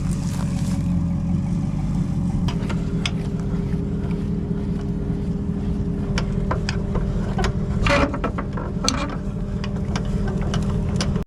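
A vehicle engine running steadily, with a scatter of sharp clicks and knocks, the loudest cluster about eight seconds in.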